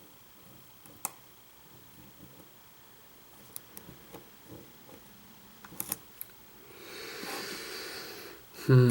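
Lock picking: faint, scattered small clicks of a hook pick and tension wrench working the pins of a pin-tumbler lock. It turns into a louder rustling about seven seconds in, and there is a short loud sound with a falling pitch at the very end.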